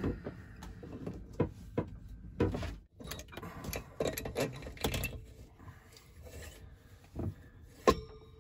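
A marine diesel heat exchanger being handled and fitted onto the engine's cylinder head: scattered clunks, scrapes and rubbing, with one sharp knock near the end as it sits down.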